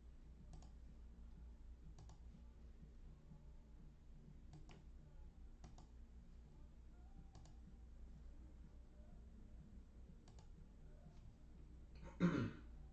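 Scattered single computer-mouse clicks, irregularly a second or more apart, over a faint steady low hum, with one brief louder noise near the end.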